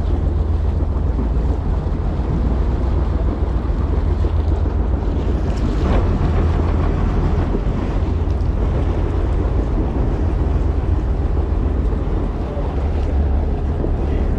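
Wind buffeting the microphone with a steady low rumble, over a haze of water and boat noise on an open fishing boat.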